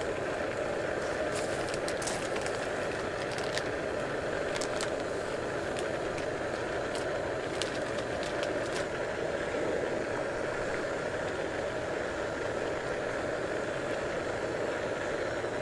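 Food frying in hot oil: a steady sizzle with scattered crackles and pops. It starts and stops abruptly.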